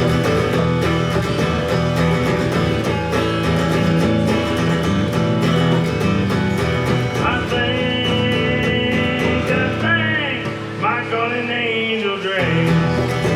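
Live country band playing an instrumental break between verses, led by guitar, with sliding, bending lead notes in the second half.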